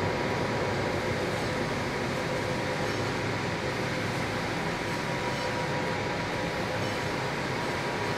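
Steady industrial machinery drone with a faint, thin, constant whine over it, unchanging throughout.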